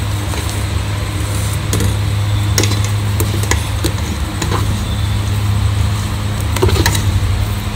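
A hand scooping thick, fluffy urad dal batter out of a steel wet-grinder drum: scattered wet squelches and small clicks against the steel, over a steady low hum.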